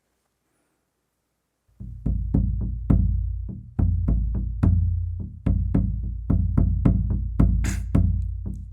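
Deep drums of a Congado Moçambique group start about two seconds in and play a steady rhythm, heavy low strokes about twice a second with lighter, sharper strokes between them.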